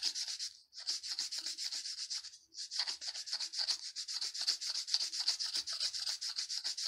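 Balsa wood being sanded by hand with sandpaper, the stick twisted in the paper in quick, even rasping strokes about five a second, with two short pauses in the first three seconds. This is the shaping stage of a dart waggler float body, sanding the balsa down to an even taper.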